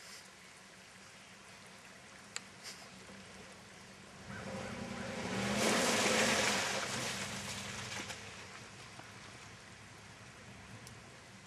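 Chevy Silverado pickup's engine revving as it powers through a mudhole, tyres churning mud and water. The sound swells from about four seconds in, is loudest around six, then fades as the truck pulls out of the mud.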